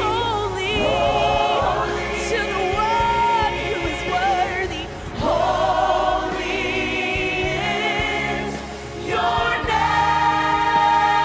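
Vocal ensemble singing a gospel worship song in close harmony, with sustained vibrato notes over a steady instrumental backing, breaking off briefly twice between phrases.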